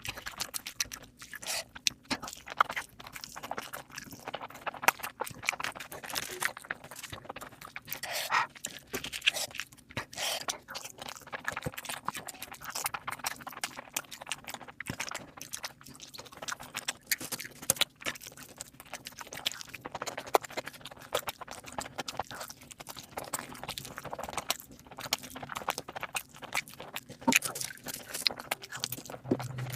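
Close-miked eating for an ASMR mukbang: steady chewing and mouth sounds with many irregular sharp clicks and smacks.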